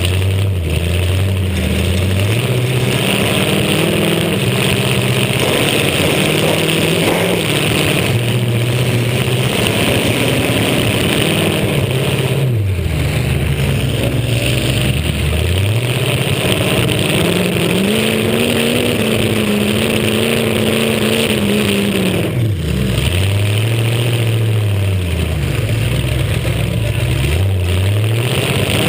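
Demolition derby car's engine revving up and down again and again, dropping back to a low idle several times, with a constant hiss underneath.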